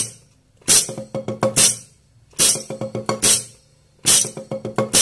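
Drumsticks playing a six stroke roll on a rubber practice pad: three short phrases of quick strokes, each starting and ending with a louder accented stroke, with a brief pause between phrases.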